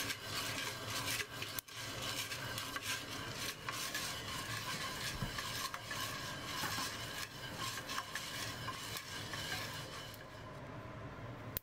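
Coffee beans being stirred in a clay roasting pot: a continuous rattling scrape of many small clicks, easing off a little near the end.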